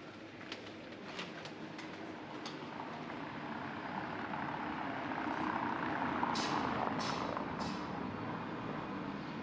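A motor vehicle passing along the street, its noise swelling to a peak about six seconds in and then easing off, with the walker's footsteps clicking at a steady pace.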